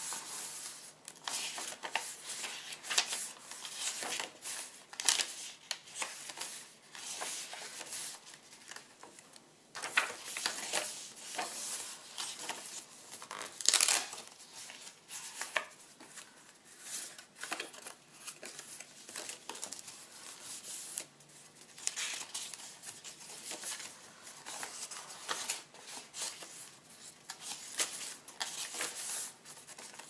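Paper pages of a handmade ledger-style journal being turned and handled by hand: irregular rustling and rubbing of paper, with the loudest rustle about fourteen seconds in.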